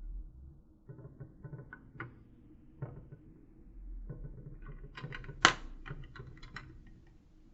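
A series of light clicks and small knocks, irregular, with one sharp loud click about two-thirds of the way through.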